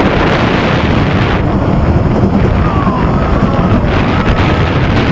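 Wind rushing over the microphone of a rider on a moving family roller coaster, a loud steady rush with faint whistling glides near the end.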